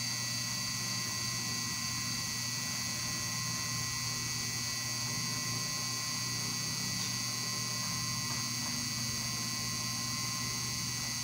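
Steady electrical mains hum with several thin, high whining tones above it.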